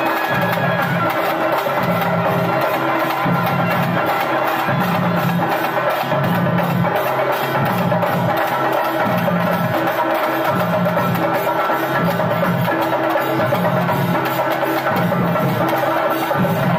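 Traditional temple festival drums and percussion playing a loud, steady repeating rhythm, with held tones sounding above the beat.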